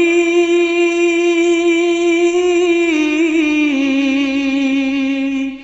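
A singer holding one long note at the end of a line of a Bengali Islamic devotional song (hamd), wavering slightly; the pitch steps down a little about three to four seconds in, and the note breaks off near the end.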